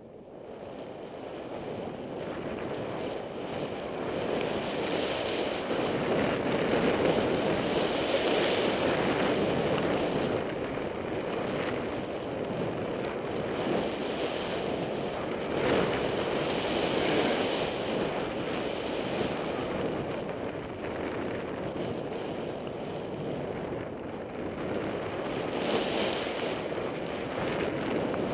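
Rushing wind on a goggle-mounted camera's microphone, with Vectorglide Butterknife skis hissing through deep powder on a downhill run. The noise builds over the first few seconds, then swells and eases repeatedly.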